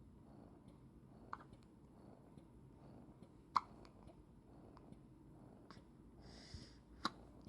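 A three-week-old baby hiccupping: short, sharp hics about a second, three and a half seconds and seven seconds in, the middle one the loudest, with a brief breathy hiss just before the last.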